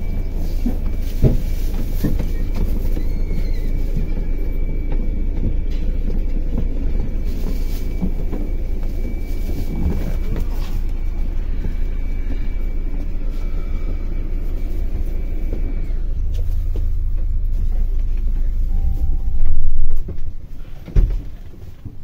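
Double-decker coach's diesel engine idling with a steady low rumble and a thin, steady high whine. Near the end comes a very loud burst of noise, then a single thump, after which the rumble drops away.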